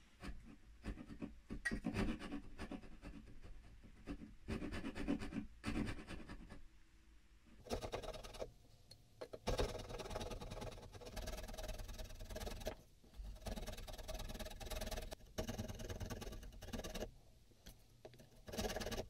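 Fine-toothed hand backsaw cutting boxwood: short rasping back-and-forth strokes in runs of a few seconds, broken by brief pauses.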